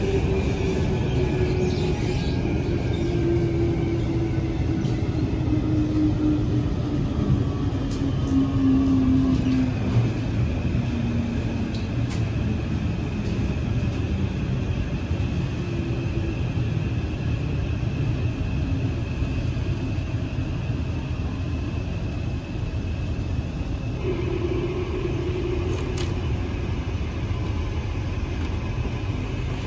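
Inside a Kawasaki–Kinki Sharyo C151 metro car with permanent-magnet synchronous traction motors as it slows into a station: the motor whine falls steadily in pitch over the first dozen seconds, over a steady rumble of the car on the track. About 24 s in, a different steady hum comes in as the train comes to rest.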